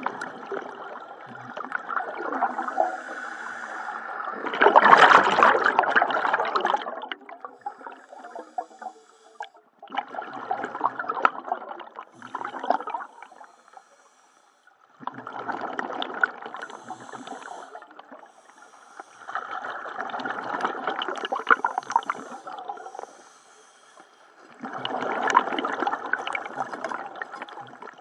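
Scuba diver breathing underwater through a regulator: six bursts of breathing and exhaust bubbling, about five seconds apart, the loudest about five seconds in.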